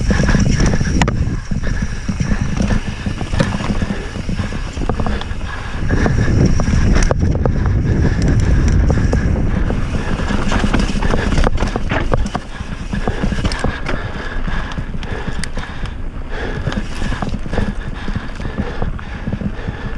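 Electric mountain bike clattering over a rocky dirt trail, with frequent knocks and rattles as the wheels hit stones and bumps. A heavy rumble of wind and ground noise runs under it, along with a faint steady whine.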